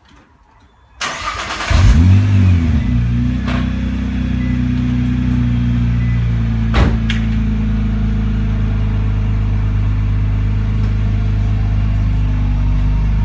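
Nissan GT-R's twin-turbo V6 started with its cat-back exhaust removed: it cranks briefly about a second in, catches with a quick flare in revs, then settles into a steady, loud idle. A couple of sharp clicks are heard over the idle.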